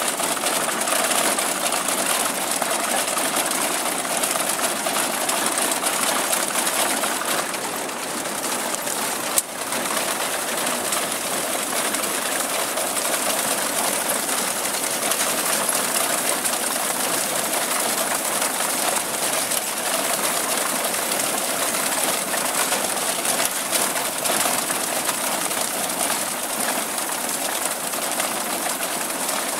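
Grain binder at work cutting oats: a steady mechanical clatter of its cutter bar, reel and packing gear, with one sharp knock about nine seconds in.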